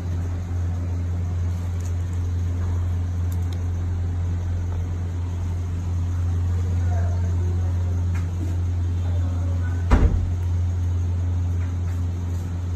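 A steady low mechanical hum, with a single thump about ten seconds in.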